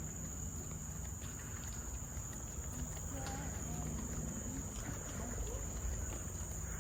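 Crickets trilling in one steady, high-pitched, unbroken tone, with a few faint short calls and a low background rumble beneath.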